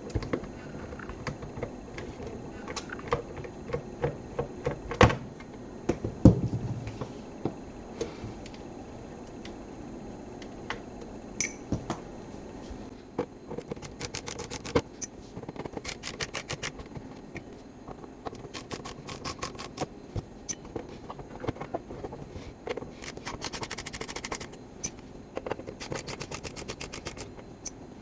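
Hands-on work on a metal network-switch chassis during a fan swap: scattered knocks and scrapes of parts being handled, loudest about five and six seconds in. Later come several bursts of fast, even clicking, each a second or two long.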